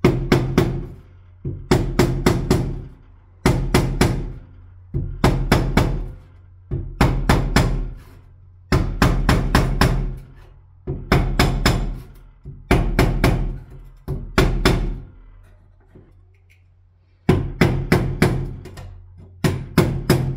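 Music with a drum-led beat: quick groups of four or five percussive hits about every two seconds over a low bass, with a short break about three-quarters of the way through.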